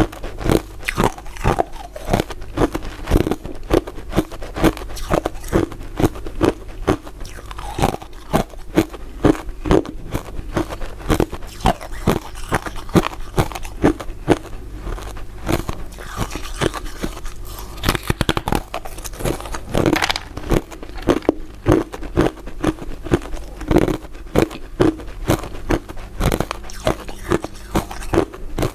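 Biting and chewing through crisp crystal ice dessert pieces: a steady run of sharp crunches and cracks, several a second.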